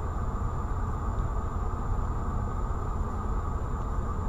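Steady low rumble and hiss of dashcam cabin noise in a stopped car, with a faint high-pitched whine over it.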